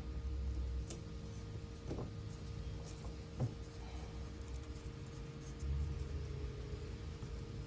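Faint scraping and rubbing of hand work on a window screen frame, with a few light clicks, as the rubber spline is pressed into the frame's channel, over a steady low hum.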